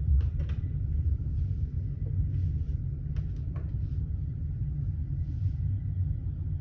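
A few sharp clicks, once in the first second and twice around three seconds in, as a newly built desktop PC is switched on at its power supply, over a steady low rumble.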